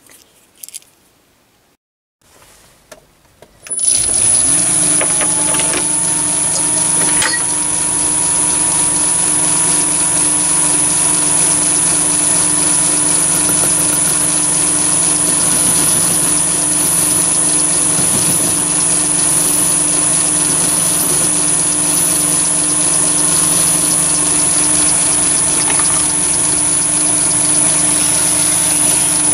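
Chinese mini lathe starting up about four seconds in, after a near-silent moment, then running steadily with a strong high-pitched whine.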